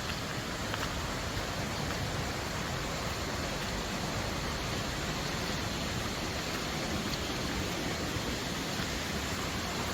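Steady rushing of flowing water, a river or waterfall, as an even hiss with no breaks or changes.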